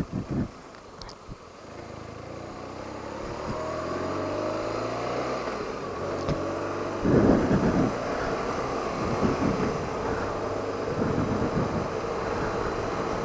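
BMW R1200RT boxer-twin motorcycle engine pulling away from low speed, its pitch rising over a few seconds and then holding steady at cruise. A couple of low thumps come near the start, and wind buffets the microphone in gusts from about halfway through.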